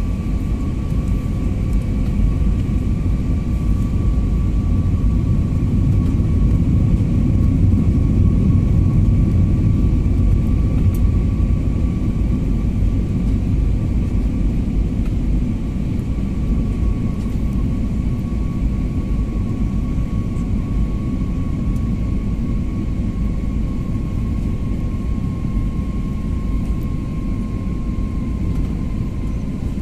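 Jet airliner cabin noise on descent, heard at a window seat: a steady low rumble of engines and airflow, with a faint high whine that slowly drops in pitch.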